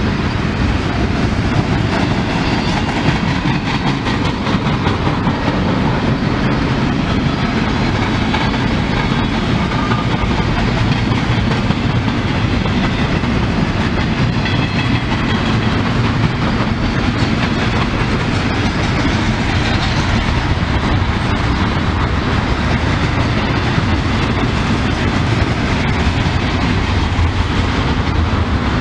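Double-stack container freight train passing, its well cars rolling by with a steady rumble of steel wheels on rail.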